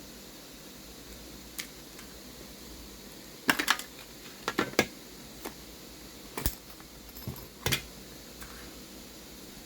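Hands opening a dented metal packaging tin and handling what is inside: a scattering of light clicks and taps, bunched in quick clusters around the middle.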